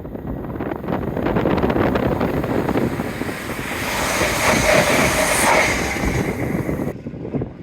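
Train passing at speed: a rush of wheel and air noise that builds to a peak about four to five seconds in, then cuts off suddenly near the end.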